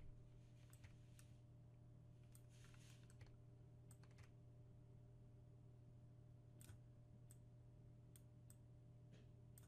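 Near silence: faint, scattered computer mouse clicks, about a dozen, over a low steady hum.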